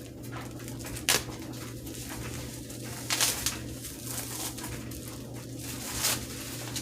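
A few sharp handling noises, about a second in, near the middle and near the end, as parts are taken out of a box, over a steady low hum.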